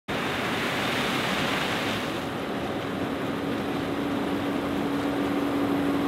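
John Deere 9870 STS combine harvesting corn: a steady rushing machine noise, with a steady hum coming in about halfway through.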